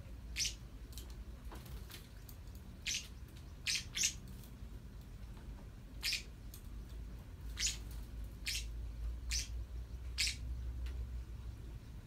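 Black-winged lovebirds giving short, sharp, high chirps, about ten at irregular intervals, some in quick pairs, over a steady low background hum.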